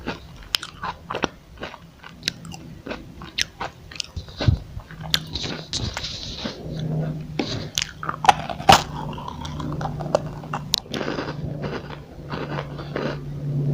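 Close-miked biting, crunching and chewing of a crispy chocolate roll, with many sharp crunches. A low steady hum joins about halfway through.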